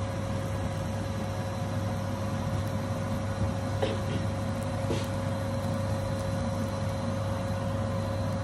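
A steady mechanical hum with a constant mid-pitched whine over it, and two faint clicks about halfway through.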